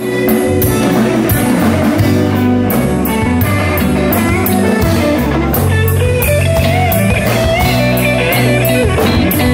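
Live blues band playing: electric guitars over a drum kit keeping a steady beat of about two hits a second. In the second half a lead guitar line bends its notes up and down.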